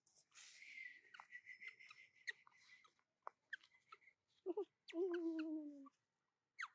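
A small animal's cries: a short call about four and a half seconds in, then a longer call whose pitch slowly falls, over light clicks and rustling.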